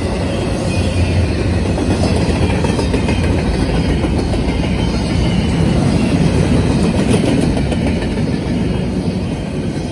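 Intermodal freight cars rolling past: a steady rumble of steel wheels on the rails, with some clatter over the rail joints.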